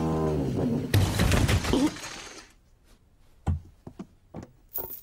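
Cartoon sound effects of heavy wooden furniture being shifted and piled up: a loud creaking, scraping stretch, then a few short knocks near the end.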